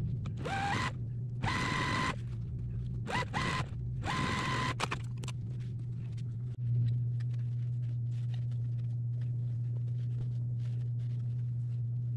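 Electric sewing machine stitching in four short bursts in the first five seconds, its motor whine rising as it starts each time, over a steady low hum.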